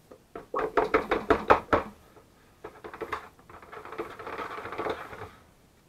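Stick blender in soap batter in a plastic bucket: a quick run of sharp knocks as its metal head strikes the bucket while stirring, a few more knocks, then about two seconds of steady rushing noise as it blends before stopping.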